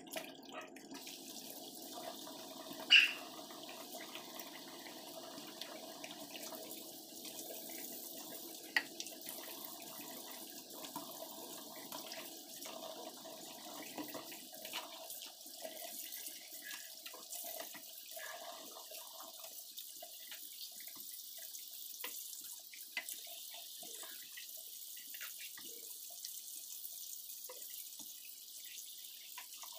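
Kitchen tap running into a stainless steel sink as a knife and vegetables are rinsed under it. There is a sharp knock about three seconds in and another near nine seconds. The splashing thins out after about twenty seconds.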